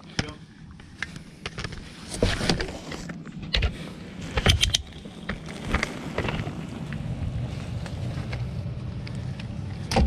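Knocks and scrapes of someone moving over attic boards and insulation, then, from about six seconds in, the steady low hum of a gas furnace's blower motor running. The blower is running on a call for heat while the burners stay unlit.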